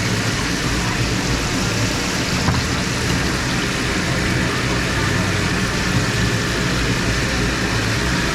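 A steady low mechanical hum under a constant hiss, with indistinct voices in the background.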